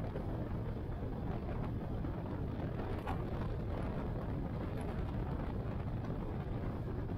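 Cruiser motorcycle's engine running steadily at road speed, with wind and road noise on the microphone.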